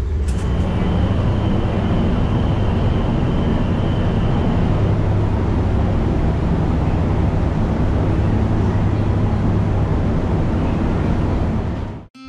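Steady low drone of a car ferry's machinery heard on board, with a faint high tone over it for the first few seconds. The sound cuts off suddenly near the end.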